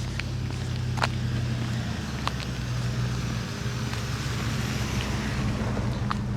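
A motor vehicle's engine running with a steady low hum, with a few short crunching clicks over it.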